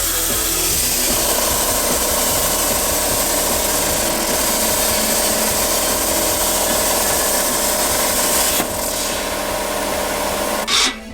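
A CNC plasma cutter hissing steadily as it cuts steel plate, with music mixed under it. The hiss changes about two thirds of the way in and drops away near the end.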